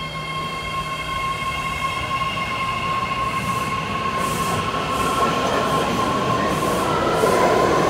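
New BART train moving through the station, its motors giving a steady high whine that grows louder, rising slightly in pitch near the end as it gathers speed, over a rumble of wheels on rail.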